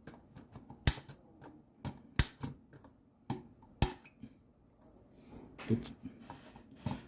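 Cutters snipping through the metal pins of a damaged DIN 96-pin connector on a circuit board: sharp snips, about one a second, with lighter ticks between.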